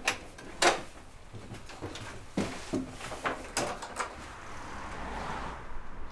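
Footsteps and the clicks and knocks of a wooden front door being unlocked and opened, a string of irregular sharp knocks, followed by a rise of even outside noise as the door swings open near the end.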